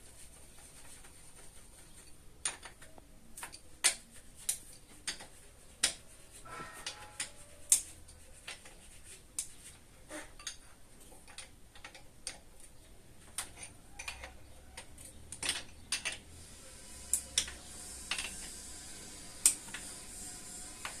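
Hand tools clicking and clinking against metal parts as a motorcycle engine is taken apart: sharp, irregular clicks, one every second or so.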